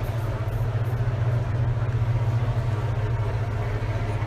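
A steady low hum with an even background of noise, unchanging throughout.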